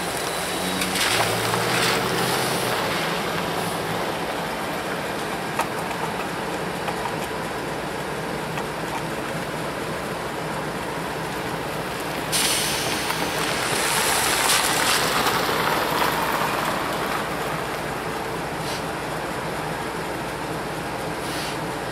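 Steady rumble of a freight train with diesel locomotives at a grade crossing, with a pickup truck's engine passing close by at the start. About halfway through a sudden hissing rush of noise starts, swells and fades over several seconds.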